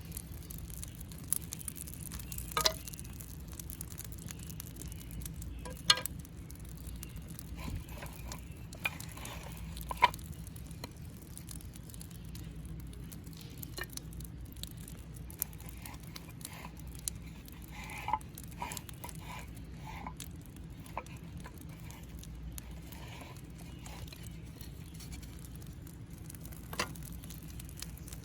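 Scattered sharp snaps and crackles of firewood, a few louder cracks among many small ones, over a low steady rumble.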